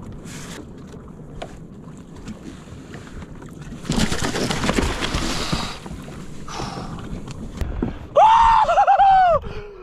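A small tuna thrashing and splashing at the surface beside a jet ski as it is pulled in: a loud splash lasting about two seconds, starting about four seconds in, over steady wind and water noise. Near the end a man lets out a long, loud, excited yell.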